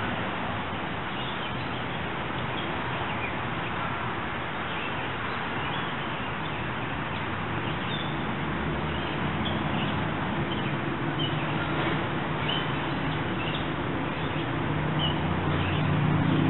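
Creek water flowing steadily, with small birds chirping now and then. From about halfway a low rumble of an approaching SEPTA electric commuter train builds, loudest near the end as the train reaches the bridge.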